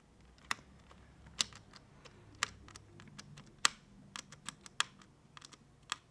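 Irregular light clicks and ticks of small screws and a screwdriver being handled and driven into the headset frame, coming quicker in the second half, the loudest about halfway through.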